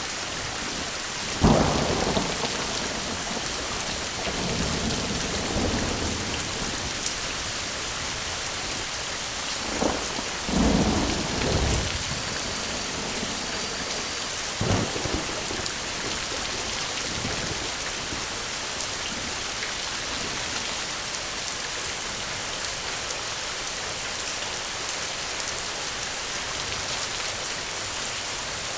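Steady rain falling, with thunder: a sharp crack near the start, rolling rumbles a third of the way in and another crack soon after, then rain alone for the rest.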